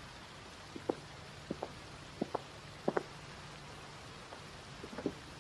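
Slow footsteps on a hard path: about five soft, short taps, each step heard as a close double tap, roughly one every 0.7 s, pausing before a last step near the end, over a steady faint hiss.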